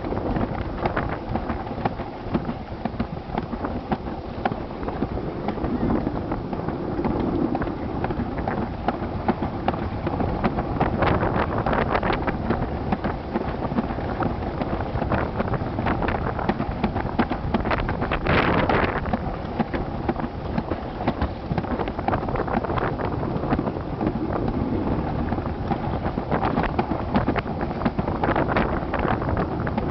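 Alpine slide sled running fast down the trough: a steady rumble and rattle of its wheels on the track with many small knocks, and wind buffeting the microphone. One brief louder burst about two-thirds of the way through.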